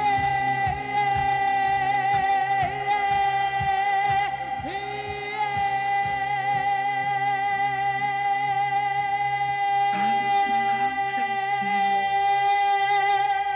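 Dance music from a DJ mix with a woman singing live over it, a long steady held tone running underneath.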